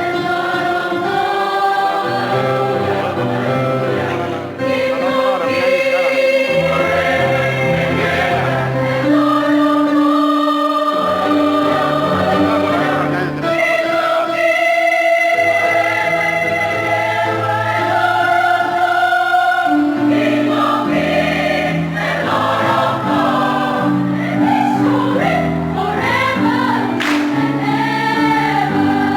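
A choir singing a sacred piece in several parts, holding long chords over a low bass line.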